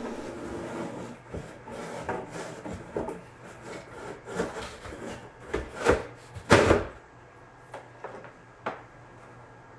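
Plastic sump pit lid being fitted onto the basin rim around the discharge pipe: irregular rubbing, scraping and light knocks, with power cords shifting. A loud scrape comes about six and a half seconds in, then only a few light clicks.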